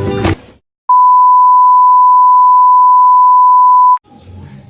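A single loud, steady electronic beep, one pure tone like a censor bleep, held for about three seconds and cut off abruptly. Just before it, music and laughter stop suddenly.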